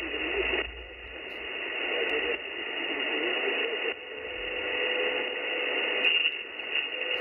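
Icom IC-705 transceiver's receiver hiss and static on the 80 m band in lower sideband, narrow and thin through the receive filter. A steady heterodyne whistle joins the noise about halfway through.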